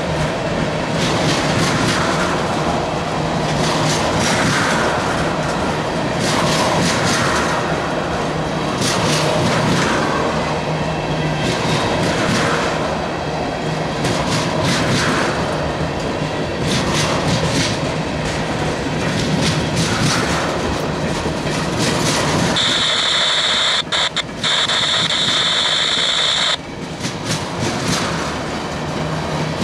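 Freight train tank cars rolling past, wheels clacking over the rail joints every second or two. About three quarters of the way through, a steady high-pitched squeal sounds for about four seconds.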